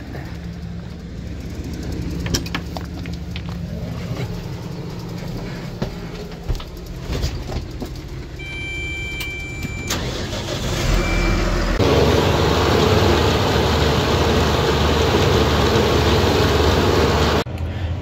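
Tractor's diesel engine idling steadily while it warms up. Short electronic beeps from the cab controls come about eight to ten seconds in. From about twelve seconds a much louder steady engine and machinery noise takes over, then cuts off sharply near the end.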